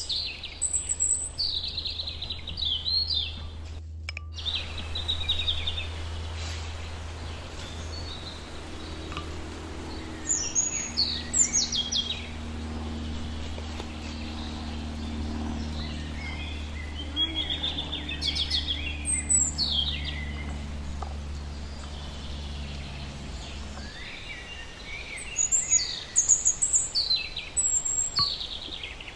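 Birds chirping in clusters of quick falling notes, several times over, above a steady low hum that stops about four-fifths of the way through.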